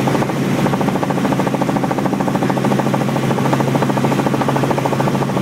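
Helicopter in flight heard from inside the cabin: a steady, loud drone from the engine and rotor with a rapid, even pulsing.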